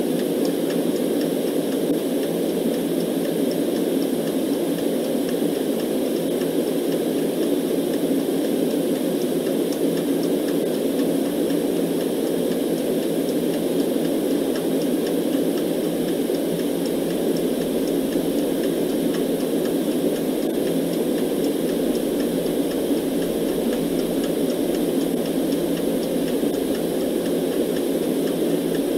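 Steady, unchanging white noise, filtered to a muffled rush whose strength lies mostly in the low-middle range.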